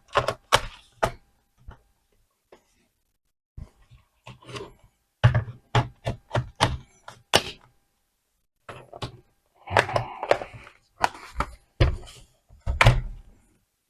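Hands working on an open laptop: a scattered series of knocks, clicks and thunks as parts and the case are handled and set down on the desk, coming in irregular clusters with short pauses.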